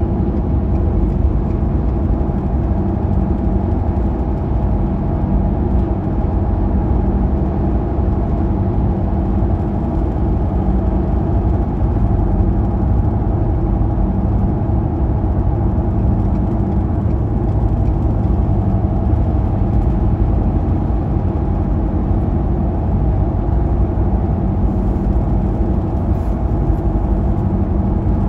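Steady road and engine noise of a car cruising at highway speed, heard from inside the cabin: a low, even drone of tyres and engine with a faint steady hum in it.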